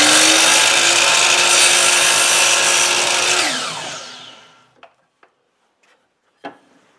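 Electric miter saw running up to speed and cutting through a strip of wood, then released so the blade winds down, fading out about four seconds in. A few short knocks follow as the wood piece is handled on the saw table, the loudest about six and a half seconds in.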